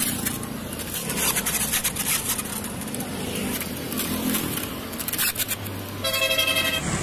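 A large kitchen knife sawing into a watermelon's rind, with repeated crisp scraping and cracking strokes as the fruit splits, over steady street traffic noise. Near the end a steady tone, like a horn, sounds for about a second.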